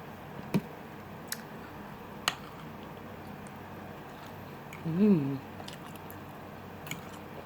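A person eating close to the microphone: a few sharp mouth clicks and smacks while chewing, and a short hummed "mmm" that rises then falls in pitch about five seconds in.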